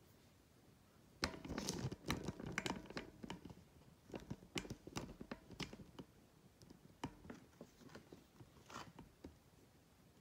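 Handling noise as an iPad in its case and a folded cereal-box cardboard stand are moved about on a fabric pad: a string of clicks, taps and rustles starting about a second in, busiest over the next two seconds, then thinning out to scattered taps.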